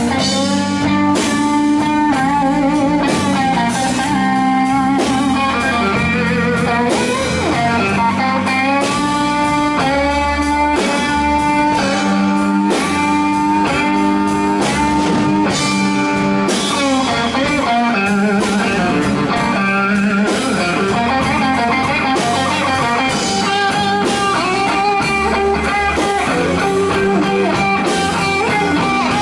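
Electric guitar solo on a Fender Stratocaster through a Bugera V55 amp, with bent, gliding notes, over electric bass and a drum kit: a blues band playing live.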